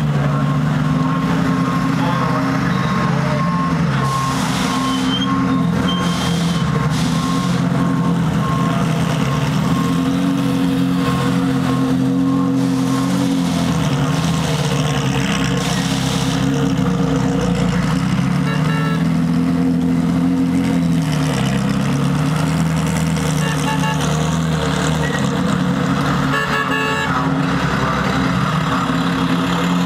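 Ferrari Challenge race cars' V8 engines idling in the pit lane, running steadily with the pitch drifting slowly up and down.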